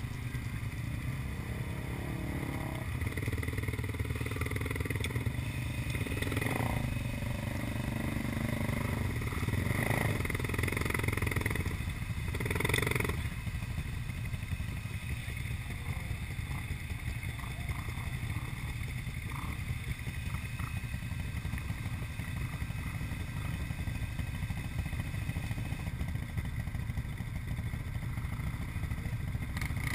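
ATV engines idling steadily, with a few brief louder swells in the first half.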